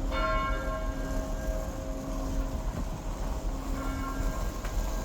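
Automated, machine-sounded church bell chime: a bell strike at the start rings out and fades, with a lingering hum. A fainter strike comes near four seconds in, over a steady low rumble.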